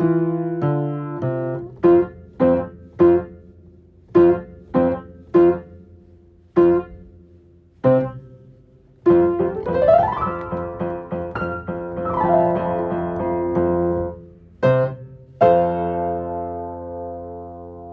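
Solo piano playing a run of short, separate notes and chords. About nine seconds in, a quick glissando runs up the keys, then another runs down. It ends on two chords, the last one held and fading.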